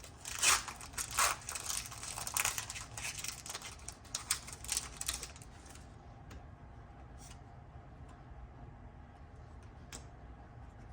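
Foil booster pack wrapper being crinkled and torn open, a dense rustle for about five seconds. After that it is quieter, with a few soft clicks as the cards are handled.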